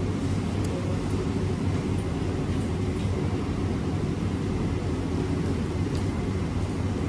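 Steady low mechanical hum and rumble of background machinery such as room air conditioning, even throughout, with a few faint light clicks.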